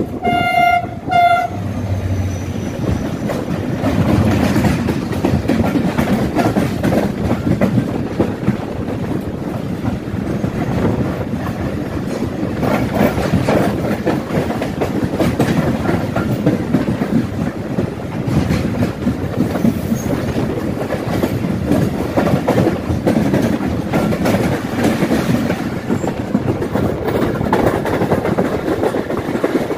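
Two short blasts of a diesel train horn at the start. A long freight train of hopper wagons then passes close alongside while both trains are moving, giving a steady rumble and clatter of wheels.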